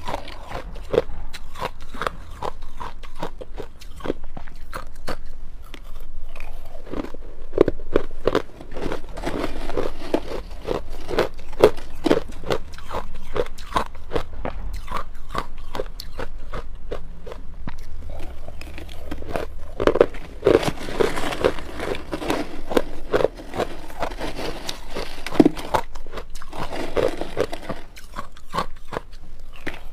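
Crushed ice being bitten and chewed close to the microphone: a rapid, uneven run of hard crunches, denser in spells.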